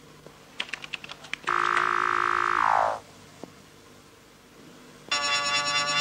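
A quick run of about eight keystrokes on a computer keyboard, then a loud electronic computer tone that holds for about a second and slides down in pitch. Near the end a second, buzzier electronic beep sounds for about a second.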